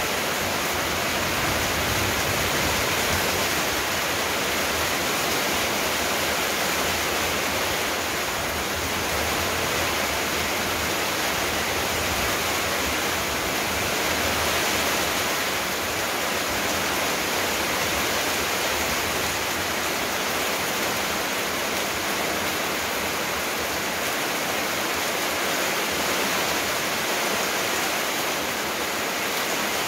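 Steady, even rushing noise with no pauses or changes, like running water or hiss.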